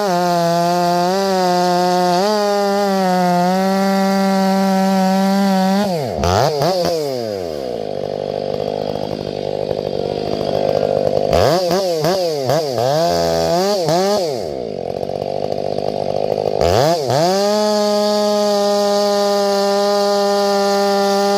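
Two-stroke chainsaw running at high revs, then dropping in pitch and wavering for several seconds as it is worked through wood, before revving back up to a steady high whine near the end.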